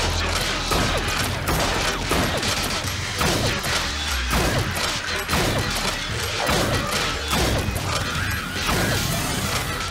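Animated fight-scene sound effects over music: a dense clatter of crashes and impacts, with repeated falling sweeps in pitch and a low rumble underneath.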